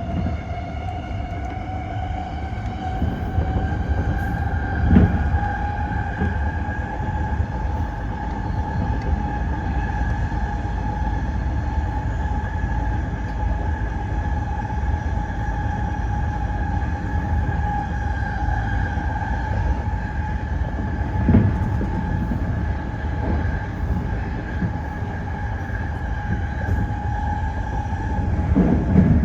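Tōyō Rapid 2000 series electric train running between stations: the traction motors' whine rises slightly at first and then holds steady over the low rumble of the wheels. A few single thumps from the track break in, the loudest about five seconds in.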